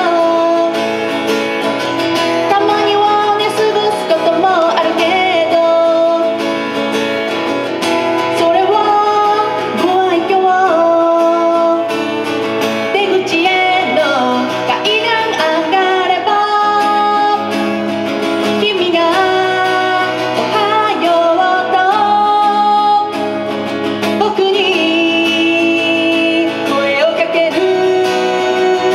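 A woman singing live into a microphone to her own acoustic guitar accompaniment.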